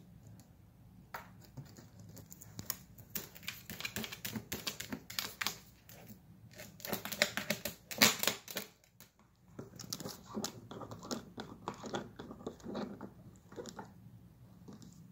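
A puppy eating from a plastic automatic pet feeder: rapid, irregular crunching and clicking of food and of teeth against the plastic tray. The loudest clatter comes about eight seconds in, as it paws and scratches at the feeder, followed by a brief lull.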